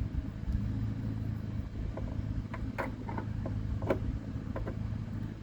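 Scattered light clicks and taps of a bulb and plastic light housing being handled, over a steady low hum.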